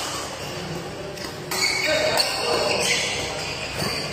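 Badminton rally: rackets strike the shuttlecock sharply a few times, echoing in a large hall, with voices in the background.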